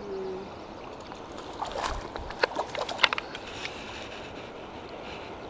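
Water splashing and sloshing in a few quick bursts in the middle as a hooked trout is scooped into a landing net in a shallow stream, over the steady rush of the flowing river.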